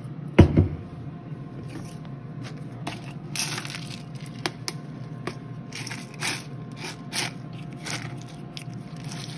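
Kitchen handling noises: a knock about half a second in, then a string of short crunching and scraping sounds, over a steady low hum.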